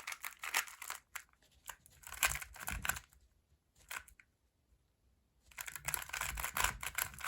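Magnetic GoCube smart Rubik's cube turned rapidly in a speedsolve: quick runs of plastic clicks and clacks as the layers snap round, with a pause of about a second near the middle.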